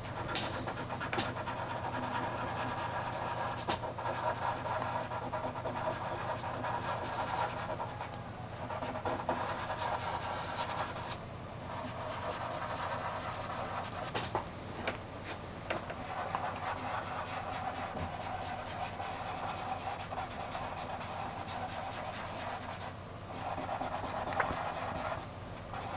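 Fingertips rubbing soft pastel into textured pastel paper to blend it, a dry scratchy rubbing that goes on in steady strokes, with a few brief pauses.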